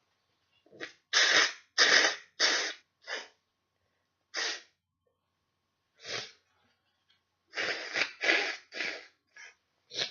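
A person with a head cold sneezing hard: a quick run of loud sneezes about a second in, single ones a little later, and another run near the end.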